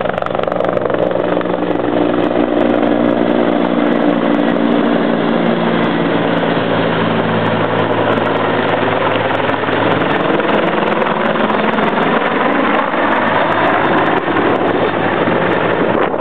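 A Bell 412 police helicopter flying low overhead, with a steady rotor and turbine noise. Its low hum fades about ten seconds in as it flies away.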